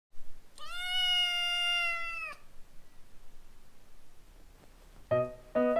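A kitten gives one long, steady meow of nearly two seconds. Piano music starts near the end.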